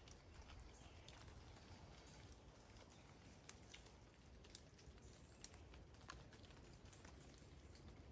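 Near silence, with a few faint, irregular light clicks.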